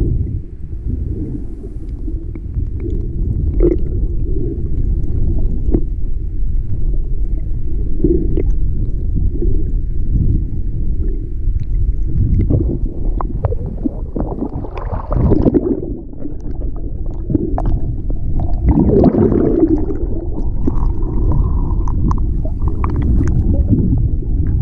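Muffled underwater sound through a submerged camera's waterproof housing: a steady low rumble of moving water with scattered faint clicks and gurgles, swelling louder about midway and again a few seconds later.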